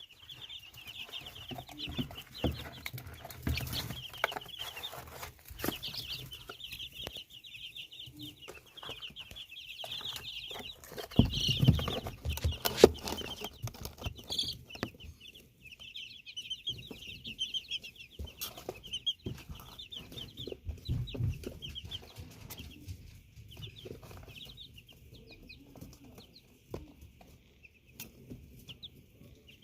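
Baby chicks peeping: many short, high peeps overlapping in a steady chatter that thins out near the end. Scattered knocks and bumps run through it, the loudest a few thumps about eleven to thirteen seconds in.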